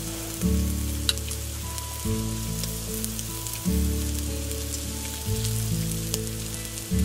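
Meat sizzling and crackling on a moo kratha grill pan, under background music of sustained chords that change about every one and a half seconds.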